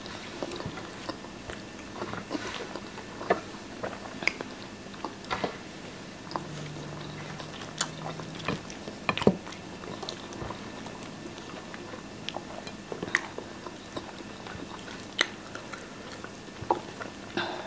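Close-miked chewing and mouth sounds of two people eating baked beans, sausage, egg and toast, with many short sharp clicks and taps of forks on plates, and a low hum for about two seconds near the middle.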